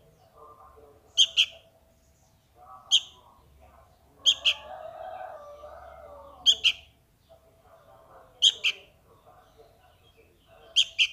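Sooty-headed bulbul (kutilang) fledgling giving sharp, high begging calls to its parent, six in all, mostly quick double notes, about every two seconds.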